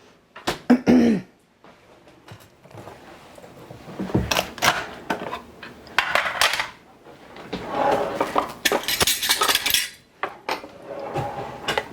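Kitchen utensils and containers being handled: a metal spoon clinking and scraping against dishes in a series of clicks and scrapes, with longer scraping or rustling stretches in the middle.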